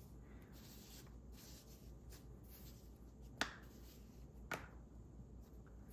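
Two short, sharp clicks about a second apart, from small objects being handled and set down while a drawer's contents are sorted, with faint handling ticks between them.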